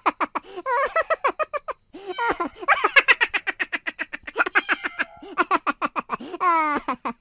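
A person laughing hard and high-pitched in rapid, repeated bursts, with a brief pause about two seconds in.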